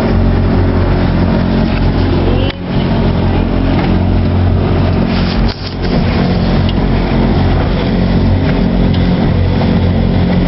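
Motorboat engine running at a steady speed under a loud, even rushing noise. The sound dips briefly twice, about two and a half and five and a half seconds in.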